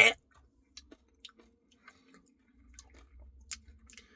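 Faint chewing and wet mouth sounds while eating a soft-serve Blizzard, with a few soft clicks scattered through an otherwise quiet stretch.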